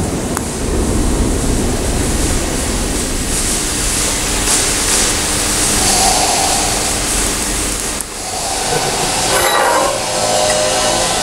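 DC TIG welding arc hissing steadily as a steel tube is fused to a stainless steel tube with filler rod, dipping briefly about eight seconds in.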